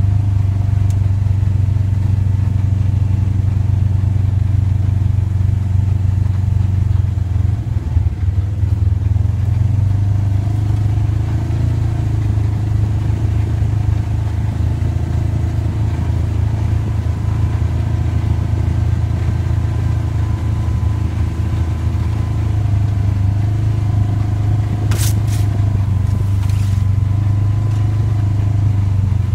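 Engine of an off-road side-by-side utility vehicle running steadily under way, a loud low drone heard from on board, its pitch easing and picking up slightly with the throttle. Two sharp clicks near the end.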